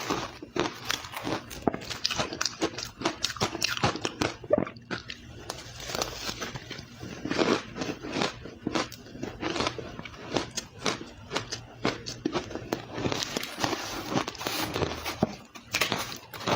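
Ice being bitten and chewed close to the microphone: a dense run of crisp crunches and cracks, broken by two short pauses.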